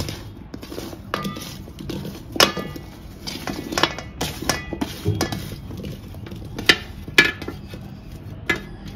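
A steel plate clinking against the rim of a metal pot as boiled amla (Indian gooseberry) segments are slid off it into the pot: a string of irregular metallic clinks, some with a short ring.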